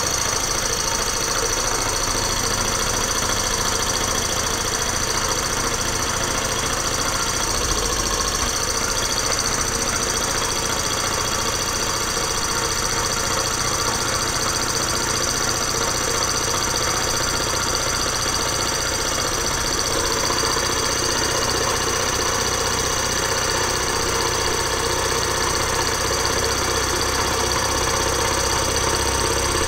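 Small hot-air Stirling engine model running fast and steadily on the heat of a methylated-spirit burner, with its flywheel on a ball bearing: an even, unbroken mechanical running sound of the pistons, connecting rods and flywheel.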